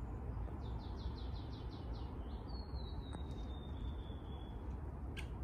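A songbird singing: a quick run of about eight short high notes, then one long thin whistle that slowly falls in pitch, over a steady low rumble.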